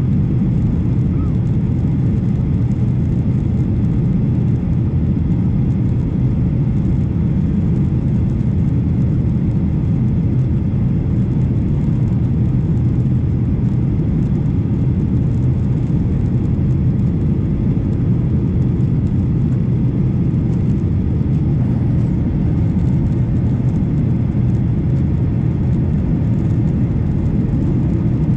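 Boeing 737 airliner's jet engines and rushing air, a steady low noise that holds an even level throughout.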